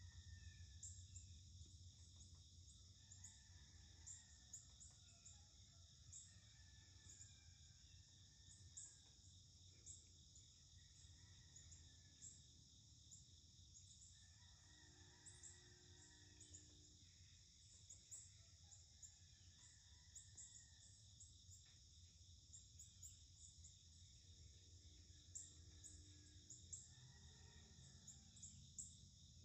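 Near silence outdoors: a faint, steady chorus of insects such as crickets, with occasional short bird chirps.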